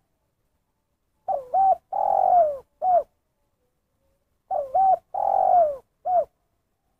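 Spotted dove cooing: two identical song phrases about three seconds apart, each a quick double coo, a long coo that falls in pitch, and one short closing coo, the single-ending 'kuk satu' pattern.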